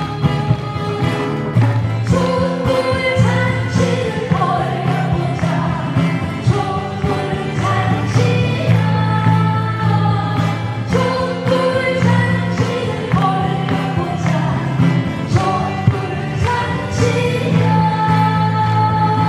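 A woman singing a Korean pop song over band accompaniment: held, wavering sung notes above a steady bass and regular light percussion.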